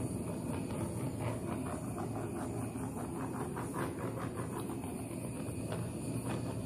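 Handheld torch burning with a steady hissing flame as it is played over wet poured acrylic paint, with faint irregular crackles.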